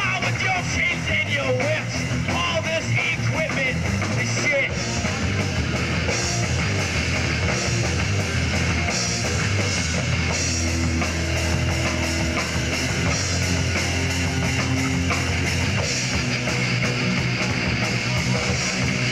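Live rock band playing electric guitars, bass and a drum kit, with notes sliding in pitch during the first few seconds and held chords later on.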